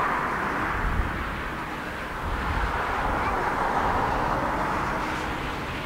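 Boeing 777-300ER's twin GE90-115B turbofan engines at takeoff thrust: a steady jet engine noise as the airliner rotates and lifts off the runway.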